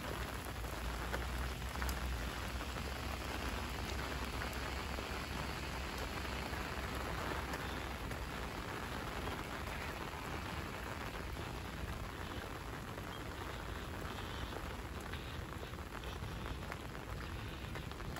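Steady light rain falling: an even hiss with many small drop ticks. A low rumble sits underneath for the first half and fades out about halfway.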